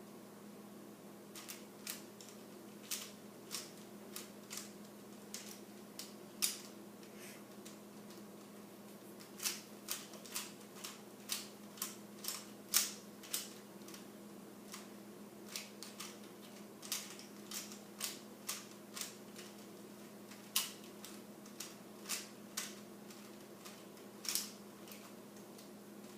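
Plastic Rubik's Cube layers being twisted by hand: irregular clicks and clacks, about one or two a second, with short pauses between bursts of turns. A faint steady hum runs underneath.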